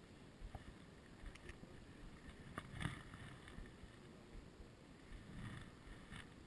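Near silence: faint wind on the microphone, with a few soft clicks and a brief rustle from handling a spinning rod and reel, the loudest a little under three seconds in.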